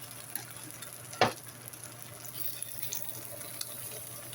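Flour-tortilla tacos sizzling in butter on a flat-top griddle, a steady hiss, with one sharp knock about a second in.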